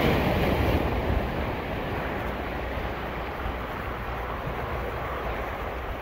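Surf washing on a beach: a steady rush of waves, louder in the first second as a wave breaks, then settling to an even wash.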